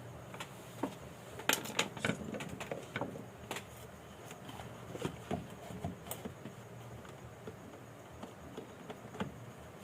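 Irregular light clicks and taps of small tools and parts being handled while working on a motorcycle's digital meter, more frequent in the first half.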